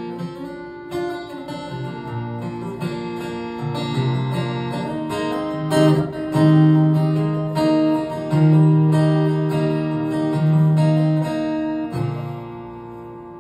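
Solo acoustic guitar playing the closing instrumental bars of a song: strummed chords struck every second or two, the last chord ringing out and fading near the end.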